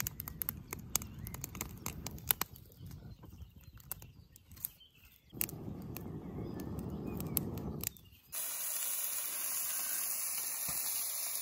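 A person blowing long breaths into a smouldering tinder bundle of cattail fluff and twigs, with many small crackles and snaps from the kindling, the blowing loudest from about five to eight seconds in. About eight seconds in it gives way to a steady hiss from a pan of greens cooking over the fire.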